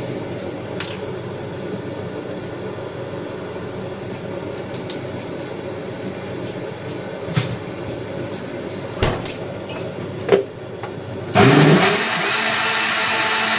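A steady low hum with a few knocks, then about eleven seconds in a Decen jug blender starts with a sudden loud whirr and keeps running, blending tomato pasta sauce.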